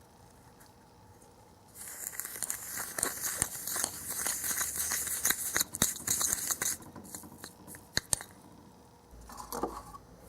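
Plastic candy-kit packaging being handled and opened, with crinkling and tearing that starts about two seconds in and runs for about five seconds. A few sharp clicks follow.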